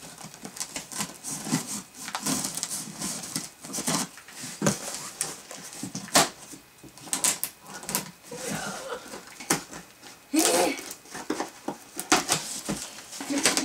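Scissors snipping and scraping through packing tape on a cardboard box: irregular clicks, tape tearing and cardboard rustling. About ten seconds in there is a brief pitched sound.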